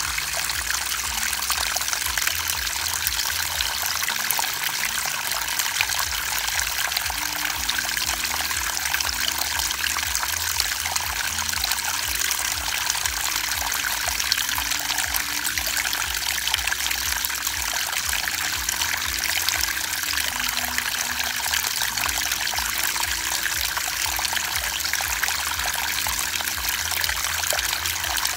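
Steady splashing and trickling of pond water, with a dense scatter of small splashes, as a packed crowd of koi churns and gulps at the surface.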